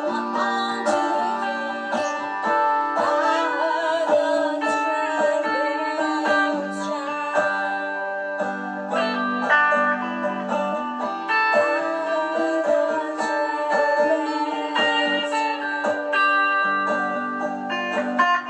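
Electric banjo and electric guitar playing an instrumental tune together: quick plucked notes over held lower notes, with a few wavering, bent notes about three seconds in.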